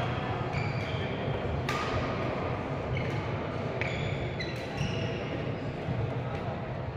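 Badminton rally: sharp strikes of rackets on the shuttlecock every second or two, with short high squeaks of shoes on the court floor, over steady low background noise.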